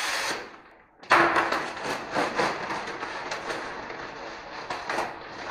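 Continuous rustling and crinkling with irregular light knocks as a roll of fiberglass wallcovering and its wrapping are handled and unwrapped. A short scrape comes right at the start.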